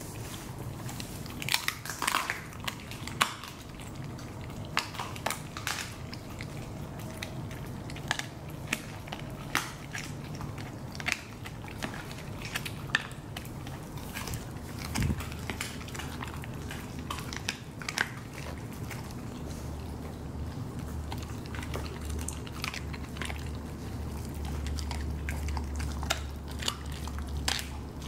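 Siberian huskies chewing raw chicken feet, with irregular sharp crunches as the bones are bitten through.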